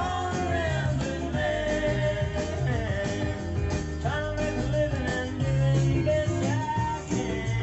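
A recorded song with singing and instruments, played from a vinyl record on a turntable through hi-fi loudspeakers.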